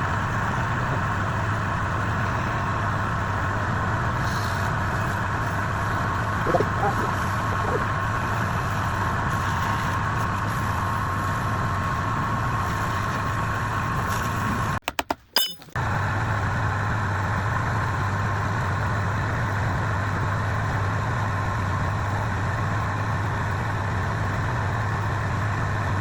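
Woodturning lathe motor running steadily with a low hum. It breaks off abruptly for about a second with a few sharp clicks around the middle, then carries on unchanged.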